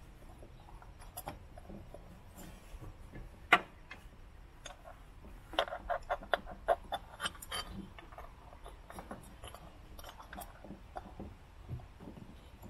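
Small metal clinks and clicks of an MGB's oil filter housing bolt (19 mm) being worked by hand to get its thread to catch. One sharp clink about three and a half seconds in, then a quick, uneven run of about ten light clicks a couple of seconds later.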